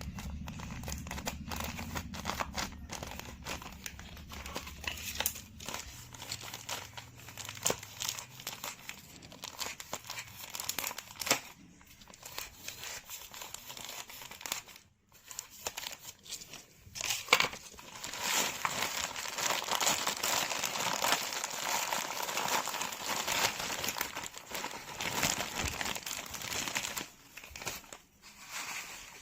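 Kinetic sand clay and its packaging being handled: a steady crinkling, crunchy crackle with many sharp little clicks, denser and louder in the second half.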